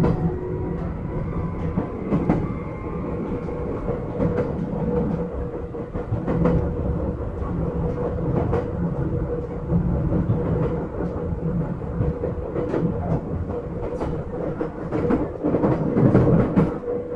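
Running sound of an Izukyu 8000 series electric train heard from inside the car: a steady rumble and hum, with wheels clicking irregularly over rail joints.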